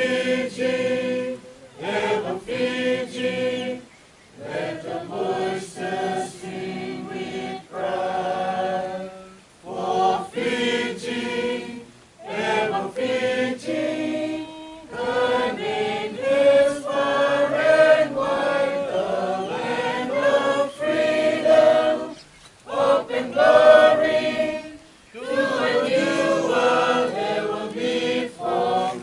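A group of people singing together, in phrases of a few seconds with short pauses between them.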